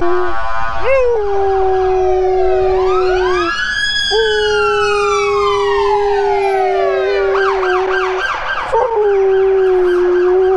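Siberian husky howling in long held notes, three of them with short breaks between. Under it a siren wails in slow rising and falling sweeps, then switches to a fast repeating yelp about seven seconds in.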